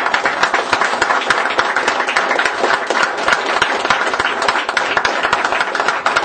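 Audience applauding: many people clapping, a dense, steady patter of claps.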